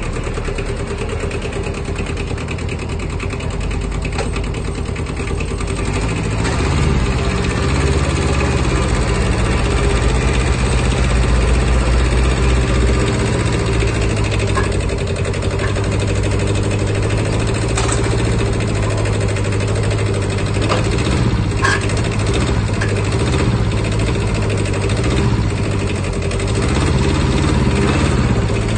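Kubota Bultra B10 mini tractor's three-cylinder diesel engine running steadily, a little louder from about seven seconds in.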